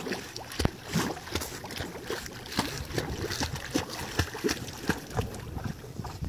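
Water splashing and sloshing as a dog paddles through a pool, with many small irregular splashes.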